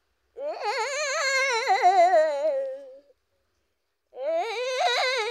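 A young female voice singing two long wordless, high-pitched phrases with a wide vibrato, the first sliding down at its end, the second starting about four seconds in.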